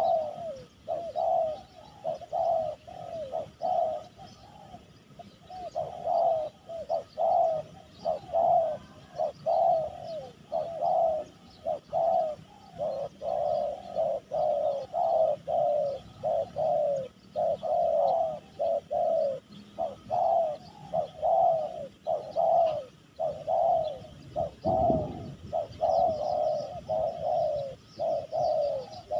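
Spotted doves cooing, phrase after phrase in quick succession with hardly a pause. Faint chirps of other small birds sit behind, and a brief low thud comes near the end.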